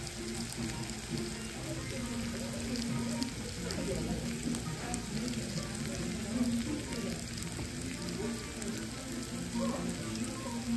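Chicken fajitas sizzling on a hot cast-iron fajita skillet: a steady crackling hiss.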